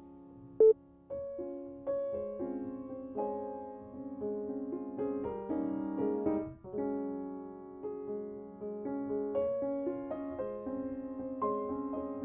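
Calm piano background music, with a short, loud beep about half a second in.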